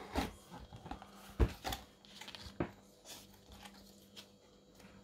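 Cardboard and paper being handled as a sketchpad is lifted out of a cardboard box: soft rustling with a few light knocks, the loudest about a second and a half in.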